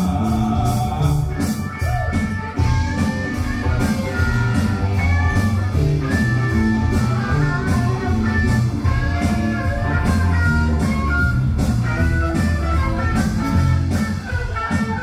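A live band playing guitar-led music with bass and a steady drumbeat.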